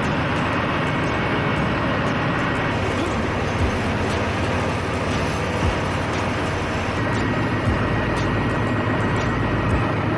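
Steady, loud machinery noise in a ship's engine room, with a few short knocks.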